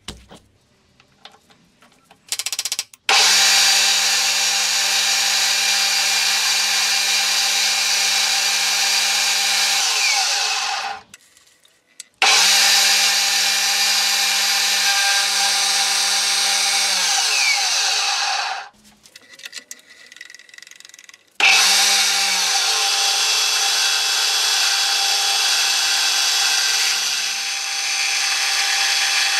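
A handheld electric power tool working steel, run in three long stretches. Each starts abruptly with a steady motor tone, and the first two wind down when released, about eleven and eighteen seconds in.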